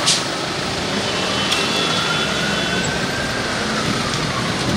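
A police siren in a slow wail: its pitch falls, climbs for about two seconds, then falls again, over a steady hiss of street traffic. A sharp click sounds right at the start.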